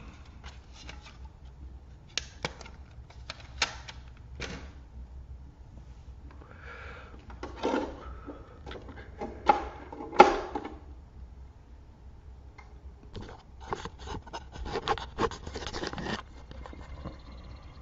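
Handling noise close to the microphone: scattered clicks, taps and rubbing of objects being moved by hand, louder near the middle and in a quick run of clicks near the end as the camera itself is picked up, over a steady low hum.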